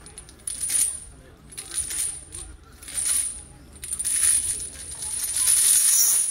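Iron chains on a captive elephant's legs and back clinking and jingling as the elephant shifts and sways, in bursts about once a second that run together into a longer rattle near the end.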